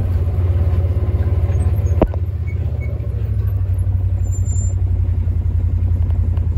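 A vehicle engine running steadily at a low rumble, with a single sharp knock about two seconds in.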